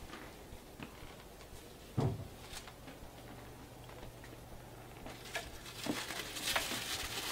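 A mixing bowl set down on the wire rack in a stainless steel sink with a dull thump, among a few light kitchen knocks. Near the end, plastic cling wrap crinkles as it is peeled back off the bowl.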